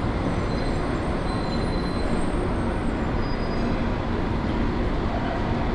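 Denver airport people-mover train pulling into the station behind the platform screen doors, giving a steady running noise as it slows.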